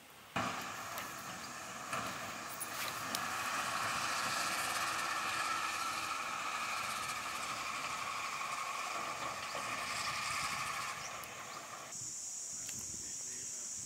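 Clay pot of braised balut simmering over a wood fire: a steady hiss with scattered crackles. About twelve seconds in, it cuts to a different, steadier high-pitched hiss.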